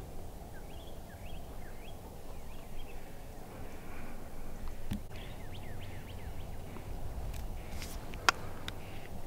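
Outdoor ambience at dawn: faint, short bird chirps in bunches over a low steady rumble, with a few light clicks and one sharp click about eight seconds in.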